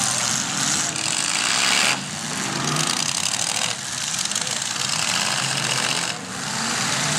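Engines of demolition derby cars running and revving, a rough noise that surges and falls back every second or two.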